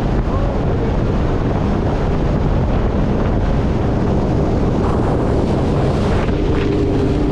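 Jet ski running at speed on open water, with steady heavy wind rushing over the microphone.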